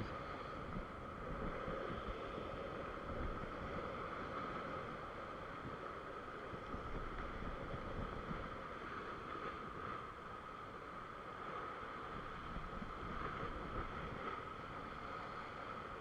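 Ocean swell surging and breaking in white water against a rock ledge, with wind on the microphone: a steady wash with no sharp events. A faint, even, high-pitched hum runs underneath.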